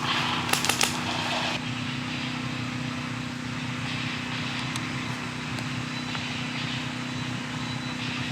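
An engine running steadily with a low, even drone, and a few sharp cracks in the first second.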